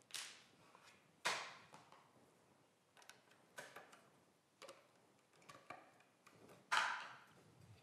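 About half a dozen sparse clicks and light knocks as a Festool PF 1200 aluminium-composite milling machine is handled with its motor off: its housing cover shut and a hand tool worked on it. The loudest knock comes near the end.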